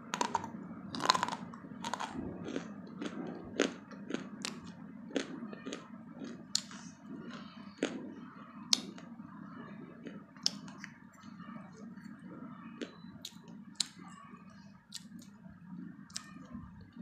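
A person biting and chewing a hard white chalk-like piece close to the microphone: sharp crunches and crackles, the loudest bites in the first couple of seconds, then irregular clicks and crunches as it is chewed.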